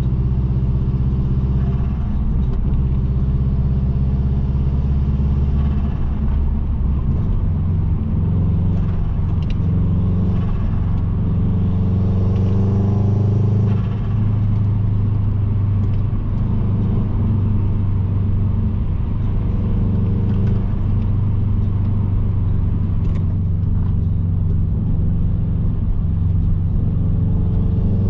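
Subaru Impreza WRX's turbocharged flat-four boxer engine running as the car drives, with a steady low rumble of engine and road. The engine note climbs around the middle, then the level drops briefly.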